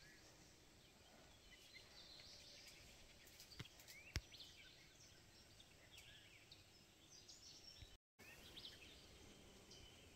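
Near silence: faint outdoor ambience with scattered distant bird chirps and two soft clicks around the middle.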